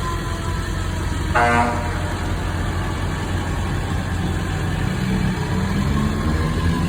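Fire engine's engine rumbling steadily as the tail of its siren winds down at the start. A short horn blast sounds about a second and a half in, and from about five seconds the engine note rises as it picks up speed.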